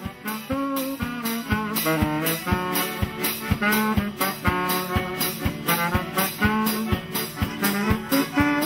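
A band playing a Polish wedding march (marsz weselny): an instrumental melody over a steady beat of about two beats a second.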